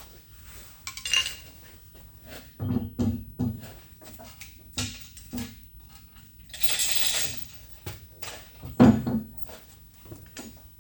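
Metal tools and machine parts clinking and knocking as they are handled and set down, with a brief scraping hiss partway through and one louder knock near the end.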